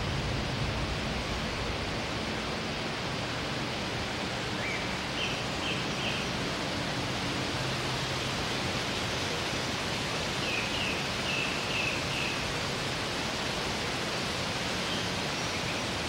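Steady rushing hiss of an outdoor nature ambience, even in level throughout. A small bird chirps in two short runs of about four quick notes, roughly five and eleven seconds in.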